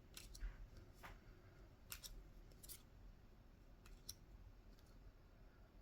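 Faint, sharp clicks and snaps of Pokémon trading cards being flipped through by hand, card edges knocking and sliding against one another, about eight irregular clicks.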